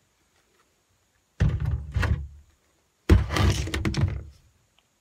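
Two bouts of dull thumps and rubbing, each about a second long, the first about a second and a half in and the second about three seconds in: handling noise as the recording phone is grabbed and moved.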